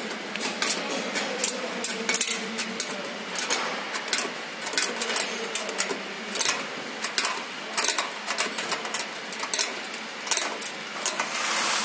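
Steel wrench on a nut clicking and clinking against the metal as the nut is tightened in short turns: an irregular run of sharp metallic clicks, several a second.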